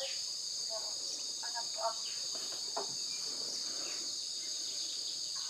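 Steady, high-pitched drone of a chorus of insects in marsh grass, with a few short chirps about a second in.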